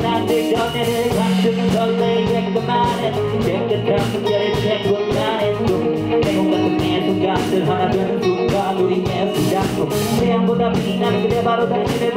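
A live band plays a song on electric guitars, bass and drums, with a rapper's vocal over it.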